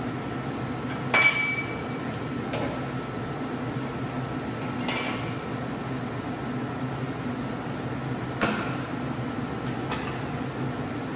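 Steel chuck key clinking against a turret lathe's chuck as an aluminium blank is clamped: a few sharp metallic clinks with a short ring, the loudest about a second in, over a steady low hum.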